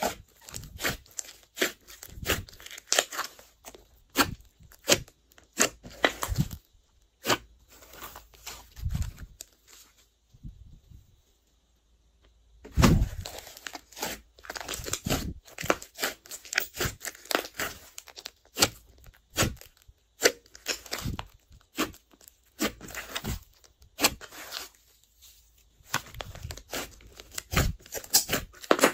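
Slime being squeezed, folded and stretched by hand, with squishing and many sharp pops and crackles as air pockets in it burst. There is a short lull about ten seconds in before the squishing picks up again.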